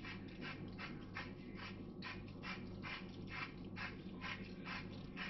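Salt being ground over a soup pot with a hand salt mill: quick, even, scratchy crunches, about four a second, over a steady low hum.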